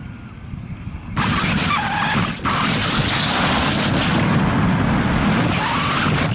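Loud wind rushing and buffeting over the microphone. It starts suddenly about a second in, drops out briefly, then carries on until it cuts off abruptly.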